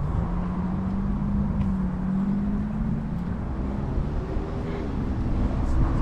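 Road traffic: a motor vehicle's engine hum, steady for the first few seconds, then higher and rising slightly in pitch, over a low rumble.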